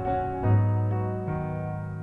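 Piano music: slow sustained chords, with a deep bass note struck about half a second in and the harmony changing again a little later.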